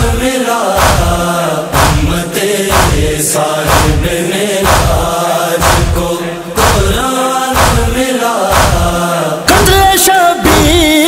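Recorded Urdu devotional chant: a wordless vocal chorus over a deep, regular beat about once a second. Near the end a single voice comes in with a wavering, ornamented melody and the sound grows louder.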